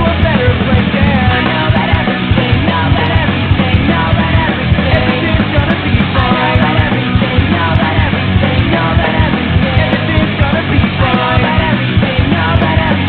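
Loud rock music with a singing voice, dense and unbroken.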